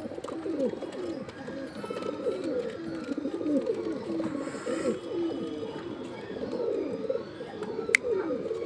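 Domestic pigeons cooing in a loft: a steady run of overlapping rising-and-falling coos, with a sharp click near the end.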